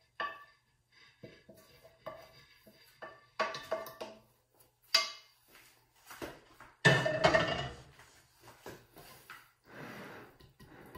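Kitchenware clinking and knocking: a metal pan and spatula scraping filling into a glass mixing bowl, with a loud clatter about seven seconds in. Near the end comes a softer stirring as a whisk mixes the filling in the glass bowl.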